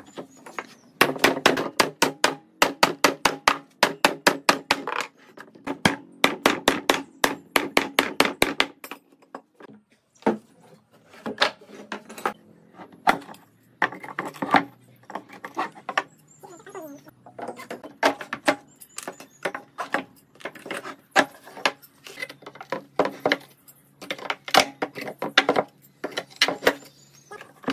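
Hammer striking wood in rapid runs of blows, several a second, broken by short pauses.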